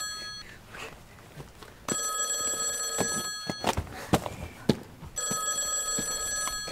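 A telephone ringing in repeated rings of about one and a half seconds with pauses between: one ends just as the clip begins, one comes about two seconds in and another near the end. Between the rings come a few sharp knocks.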